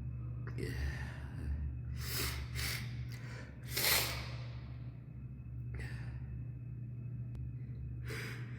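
A person's sharp, gasping in-breaths and sniffs, about six of them, the loudest about four seconds in: the build-up of a sneezing fit. A steady low hum runs underneath.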